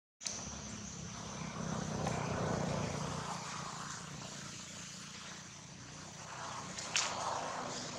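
Low, steady engine drone from a passing motor, swelling about two to three seconds in and then slowly fading, with one sharp click near the end.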